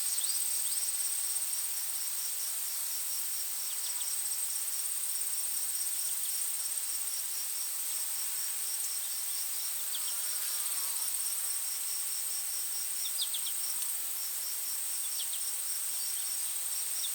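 Forest ambience of insects: a steady high-pitched trill with a rapid, evenly pulsed cricket chirping alongside it. Short high bird chirps come in now and then, in quick little clusters in the second half.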